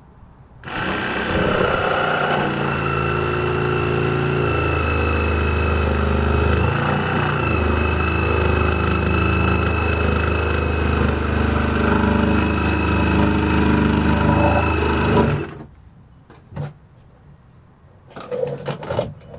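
Cordless DeWalt power tool motor running steadily for about fifteen seconds, with a brief change in pitch about halfway, then stopping suddenly.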